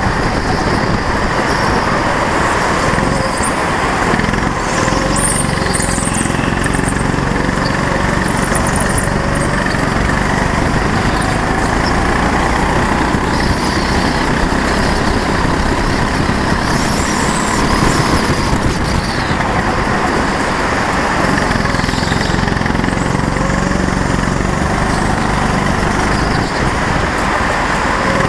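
Go-kart engine running hard on a lap, its pitch rising and falling with the throttle.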